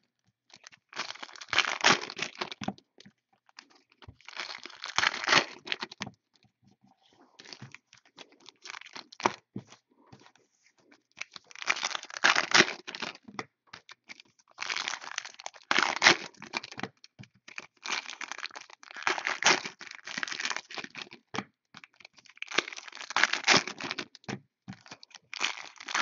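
Plastic wrapping crinkling and tearing as a sealed box of 2014 Select football cards is opened by hand. The noise comes in repeated bursts with short pauses, fainter for a few seconds about a quarter of the way in.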